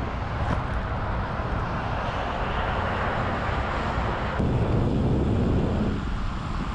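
Steady rushing of wind on the camera microphone while riding, changing suddenly a little over four seconds in to a deeper rumble.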